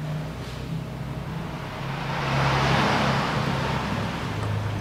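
A low, steady motor-vehicle hum, with a rush of noise that swells about halfway through and then fades.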